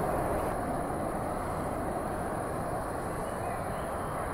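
Jet engines of a four-engined airliner on the runway, a steady broad noise heard at a distance. A few faint bird chirps come in near the end.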